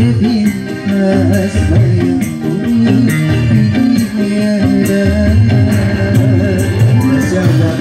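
A live band playing: a male singer over a microphone and loudspeakers, with guitar and a pair of djembe hand drums keeping a steady beat.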